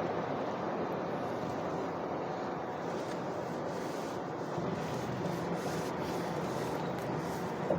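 Steady rush of freeway traffic.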